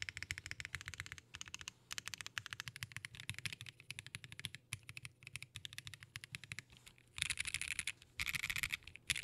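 A GEONWORKS F1-8X 722 mechanical keyboard with lubed Durock Cherry Blossom linear switches (full POM housings, Cherry MX Red stems, filmed) on an aluminium leaf-spring plate, no foam: a quick run of key presses, then from about seven seconds in, bursts of rapid two-handed mashing where the clacks blur together.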